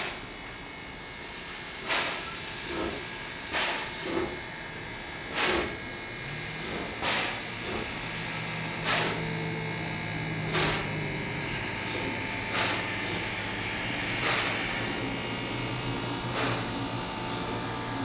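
Steam locomotive standing still under steam, giving off a short puff of steam about every one and a half to two seconds over a continuous hiss. A low steady hum starts about six seconds in.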